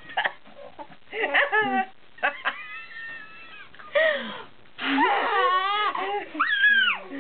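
Baby's high-pitched cries and squeals in short bursts separated by pauses, with a longer wavering one about five seconds in.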